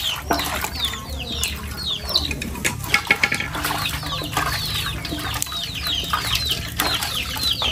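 Free-ranging chickens: many short, falling chick peeps in quick succession, with a few hen clucks and occasional sharp knocks.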